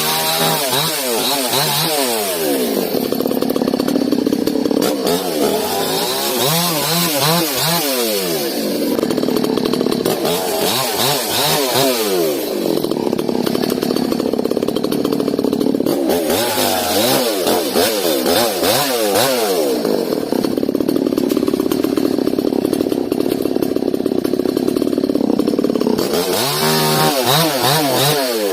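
Yasuka two-stroke chainsaw with a 24-inch bar, running at high revs, its engine speed sagging and climbing back several times, as it does when the chain is cutting into wood.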